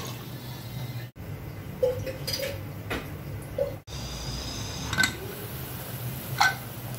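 A handful of sharp metal clinks and knocks against an aluminium pressure-cooker pot over a steady low hum. The sound cuts out abruptly twice.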